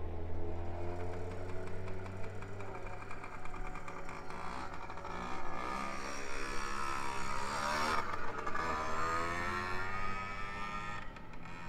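Two-stroke racing motorcycle engine rising in pitch to a peak about eight seconds in, then falling away, over a steady low hum.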